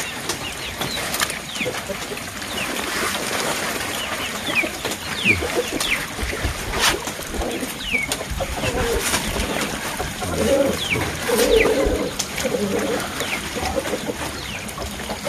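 Pond water splashing and dripping as a fine-mesh net holding fish fry is gathered up and lifted by hand in shallow muddy water. Birds chirp throughout, with a few low cooing calls about ten seconds in.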